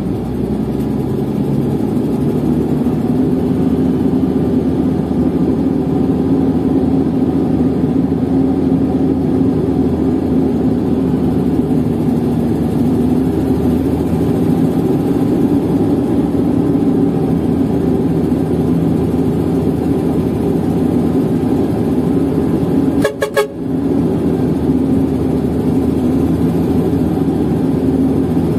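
Sany STC800S mobile crane's diesel engine heard from inside the cab while driving: a steady drone, with a brief break in the sound about 23 seconds in.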